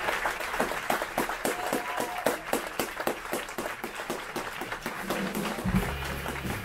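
Audience applauding in many quick, dense claps, with a brief cheer early on. Near the end the band begins to play, low notes coming in under the clapping.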